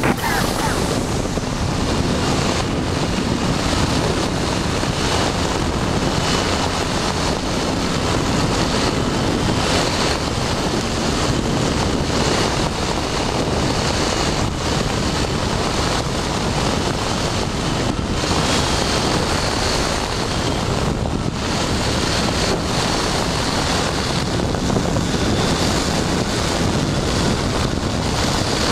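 Wind rushing steadily over the microphone of an open-cockpit ultralight trike on final approach, with the trike's engine running beneath the wind.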